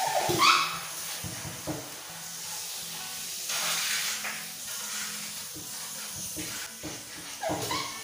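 Hand pump sprayer hissing as it sprays water into a split air conditioner's indoor unit. A louder, high pitched cry-like sound comes about half a second in and again near the end.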